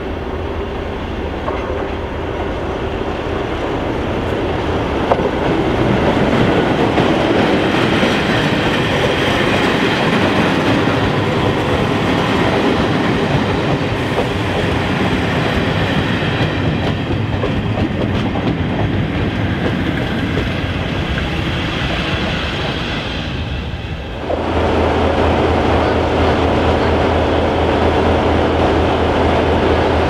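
Locomotive-hauled passenger train arriving slowly, Class 33 diesel leading, its coaches clicking over rail joints as they roll past. About 24 seconds in the sound cuts to a steady hum: the Class 33's Sulzer eight-cylinder diesel engine idling at the platform.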